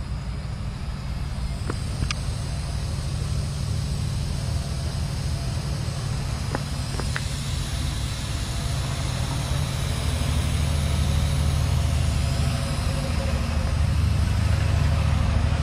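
Steady low hum with an even hiss over it, getting slightly louder in the second half, heard at the camper pickup's front wheel. The owners take it for air leaking from a punctured tyre.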